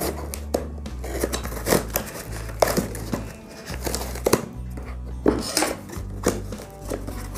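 Scissors snipping through a package's printed wrap, and the wrap crinkling and tearing away from a cardboard box in a string of sharp crackles, over background music with a steady bass line.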